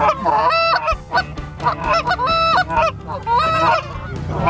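Canada geese honking: a quick run of loud honks, several overlapping, as the flock comes in close.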